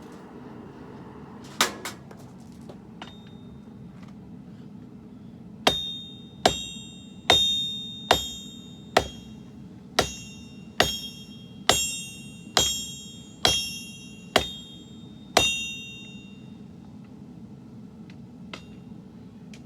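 Blacksmith's hammer striking a sword blade on an anvil during forging: a couple of blows, then a steady run of about twelve ringing strikes, a little under one a second, over a steady low hum.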